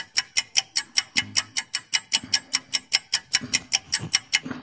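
Clock-ticking sound effect for a quiz countdown timer: fast, even ticks, about five a second, that stop near the end.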